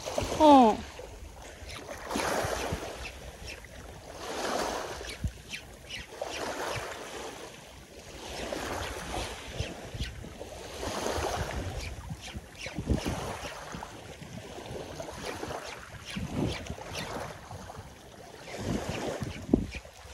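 Small waves washing in on a shallow sandy beach, swelling and fading every two seconds or so, with wind on the microphone.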